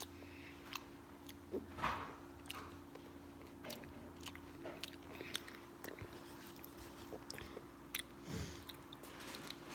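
A person chewing and biting a small piece of food close to the microphone, scattered soft clicks of the mouth and teeth over a faint steady hum.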